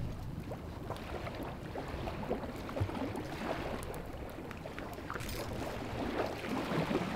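Kimchi-and-clam broth simmering in a clay donabe pot, a steady crackling bubble.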